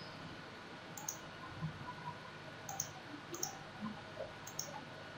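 Several faint, scattered computer mouse clicks over a low steady hiss.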